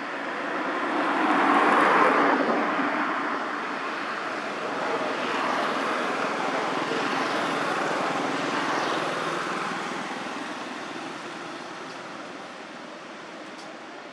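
Rushing noise of passing traffic, swelling about two seconds in and again midway, then slowly fading.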